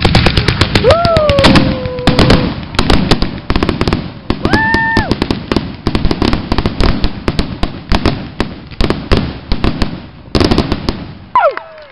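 Aerial fireworks going off in a rapid, continuous barrage of loud bangs and crackling. The barrage thins out and stops about eleven seconds in.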